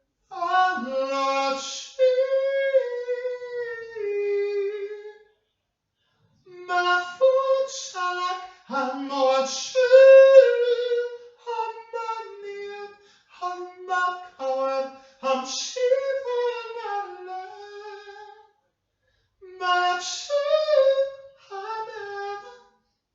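A single high-pitched voice singing unaccompanied in long, drawn-out phrases, its notes sliding up and down, with two short breaks of silence.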